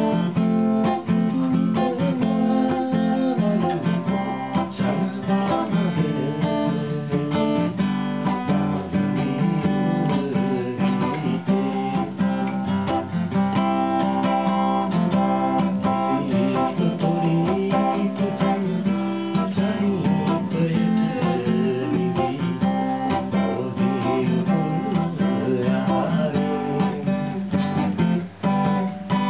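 Acoustic guitar being strummed, played continuously as a tune.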